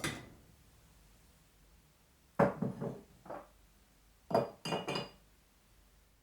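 Ceramic teapot and china clinking. One clink rings out at the start, then comes a cluster of three or four light clinks about two and a half seconds in, and another cluster about four and a half seconds in.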